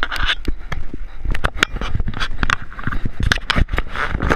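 Handling noise on an action camera: a rapid, irregular run of knocks and clicks with scraping and rustling as the camera is moved about and gripped by hand.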